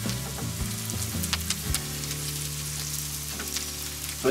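Green beans sizzling in a cast-iron pan over a charcoal grill while being stirred with a wooden spatula. The frying hiss is steady, with scattered small clicks and scrapes from the stirring.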